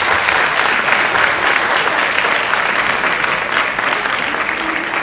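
Audience applauding: dense, steady clapping that slowly dies down toward the end.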